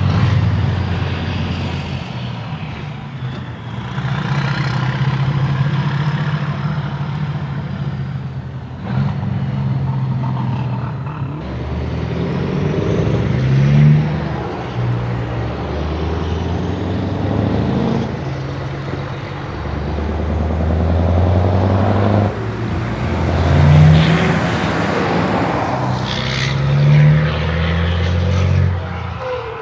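Heavy diesel trucks with open straight exhaust pipes driving past, one a Scania V8; the engines rev up and drop back at each gear change, loudest about two thirds of the way in.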